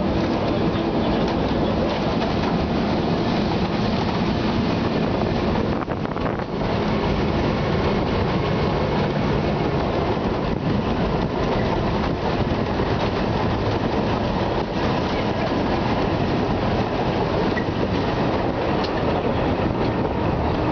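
Narrow-gauge forest railway train running, heard from inside an open-sided passenger car: a steady rumble of wheels on rails with fine rapid clicking. The sound dips briefly about six seconds in.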